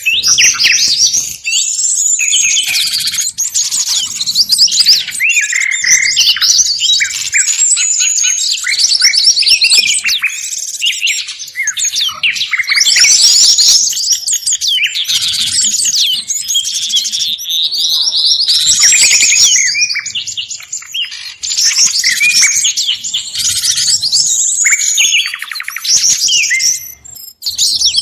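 A dense, noisy chorus of many small songbirds chirping and trilling over one another: a recorded bird-lure mix ('ribut' lure) combining calls of flycatchers, tits, white-eyes and similar small forest birds.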